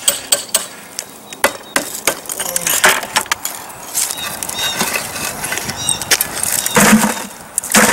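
Old chimney-cap bricks and mortar being pried loose and knocked off by hand: an irregular string of sharp knocks and clinks, with two louder, longer bursts near the end.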